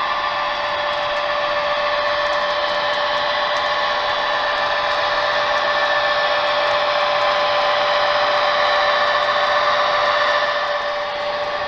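HO-scale model diesel locomotives running a freight train past, their electric motors and gears giving a steady whine over the rolling of wheels on the rails. It grows louder as the engines come closest and eases a little near the end.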